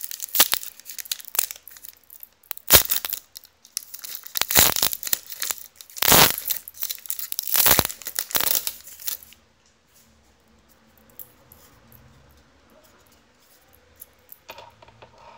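Wrapper of a Panini Brilliance basketball card pack being torn open and crinkled, loud crackling for about nine seconds. After that there are only faint handling sounds.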